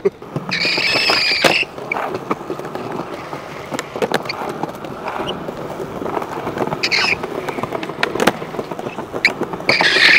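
Skateboard wheels rolling over smooth stone paving, with several sharp clacks of the board popping and landing and a few brief high squeals.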